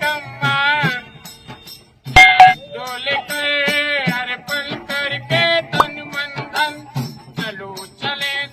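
Hindi devotional bhajan music: a melodic line that bends up and down over jingling, tambourine-like percussion.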